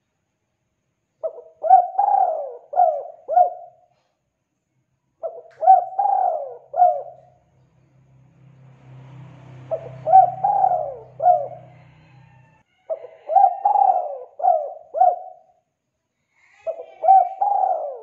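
Spotted dove cooing its phrased call: five phrases of several rising-and-falling coos, one every three to four seconds.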